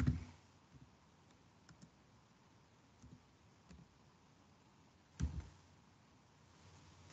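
Sparse, faint keystrokes on a computer keyboard as a sentence is typed, with one louder knock about five seconds in.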